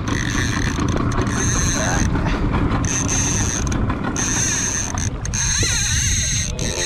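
Fishing reel's clicker ratchet buzzing in repeated spurts of about a second, over the steady low hum of the boat's motor and wind on the microphone.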